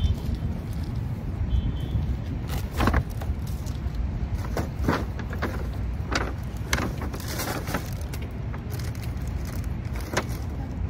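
Paper takeout bag rustling and crinkling in a series of sharp bursts as a hand rummages inside it, over a steady low rumble.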